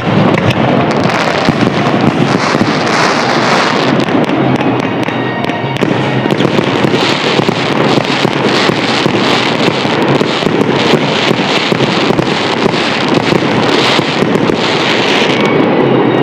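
A dense, continuous barrage of fireworks bursting and crackling, with rapid crackling clusters through the middle and latter part.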